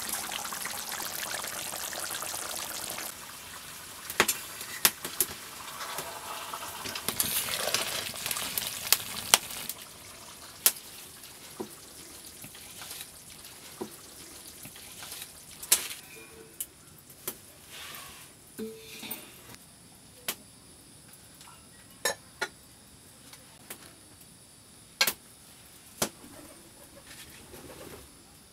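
Fish curry in a pan on a wood fire, bubbling and sizzling with a steady hiss that drops away about three seconds in. After that it is quieter, with scattered sharp clicks and taps.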